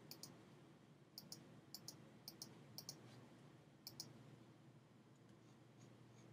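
Faint computer mouse clicks, a dozen or so, some in quick pairs, stopping about four seconds in.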